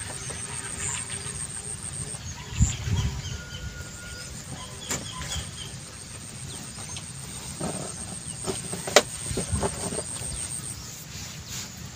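Wind buffeting the microphone with an uneven low rumble, with scattered small knocks and clicks from gear being handled on a bamboo raft; the sharpest click comes about nine seconds in.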